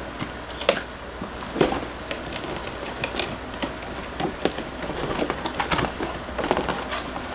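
A cardboard product box and its packaging being handled and opened by hand: scattered light clicks, taps and rustles, irregular throughout.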